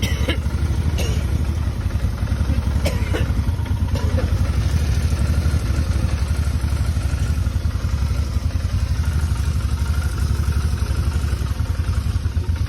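Motorcycle engine running steadily underway, with a faint thin high whine over the rumble that the owner asks about as a possible failing fuel pump in the gas tank. A few short sharp clicks sound in the first few seconds.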